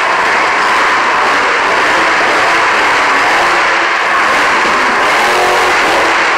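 Monster truck engine running loud and steady as the truck drives across a dirt arena floor, its noise filling an indoor arena.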